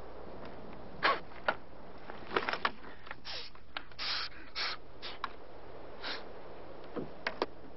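A man lighting a cigarette and drawing on it: a few sharp lighter clicks and short breathy puffs and draws, scattered at uneven intervals over a steady low hum.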